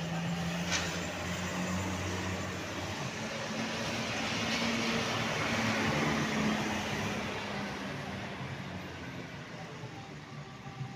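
Diesel bus engine running as a bus passes close by, growing louder to a peak around the middle and then fading.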